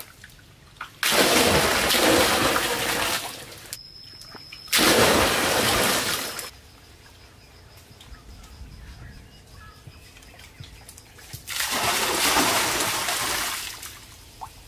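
Water splashing in three rushes of about two seconds each, with quieter gaps between them.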